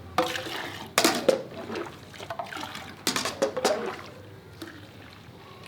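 Fresh cow's milk being poured from a bucket into a measuring jug, with several splashy pours in the first four seconds and quieter sloshing after. It is the sound of a milking's yield being measured out one jug at a time.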